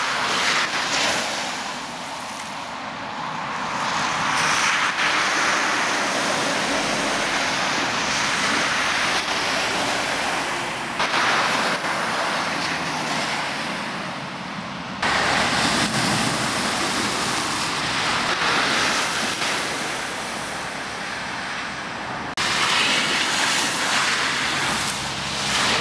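Vehicles, among them a lorry, driving through floodwater across a road, their tyres ploughing the water and throwing up heavy spray that comes down with a loud rushing splash. Several passes, each one swelling up suddenly, about 11, 15 and 22 seconds in.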